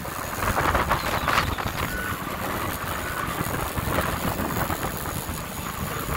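Boston Whaler motorboat under way: wind buffeting the microphone in gusts, with water rushing along the hull and a low rumble beneath.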